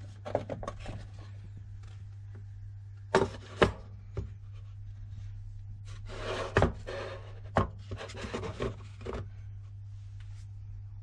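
Small wooden box being handled and set down on a wooden shelf: a few sharp knocks with wood rubbing and sliding, the busiest stretch a little past the middle. A steady low hum runs underneath.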